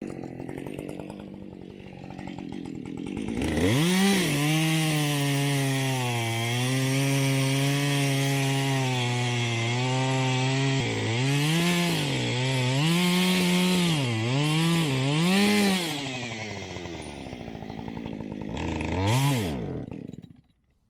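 Gasoline engine of a Woodland Mills HM122 bandsaw mill revving up with the band blade running, a steady hiss over the engine note. The engine speed dips and recovers several times, then drops, gives one short rev and cuts off near the end.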